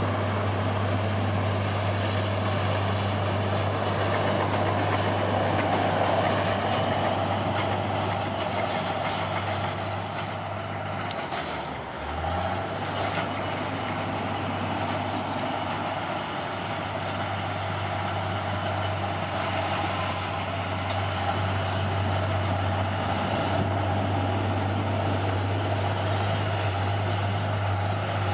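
Caterpillar D6R bulldozer's diesel engine running steadily under work. Its note sags briefly about twelve seconds in, then picks back up.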